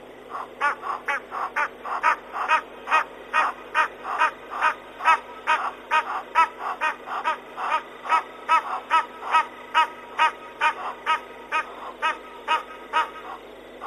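An animal calling in a long, steady series of short pitched calls, about two and a half a second, getting louder about half a second in.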